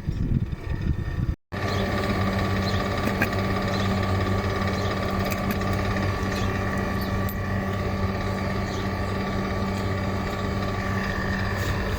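Water cooler's electric fan motor running with a steady electrical hum and a few faint ticks. A short stretch of irregular rumbling cuts off about a second and a half in, before the steady hum starts.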